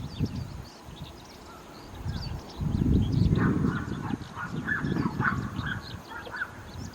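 Bull-headed shrike singing fast, high chirping notes that mimic a skylark's song, with a run of lower, harsher notes from about three and a half seconds in. A low rumble is loudest around three seconds in.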